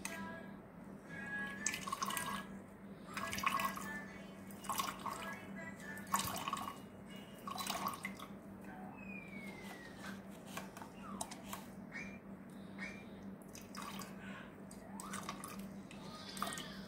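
Wet squelches of ground ginger paste being squeezed by hand through a plastic sieve, again every second or two, with the juice dripping into a steel tumbler. A steady low hum runs underneath.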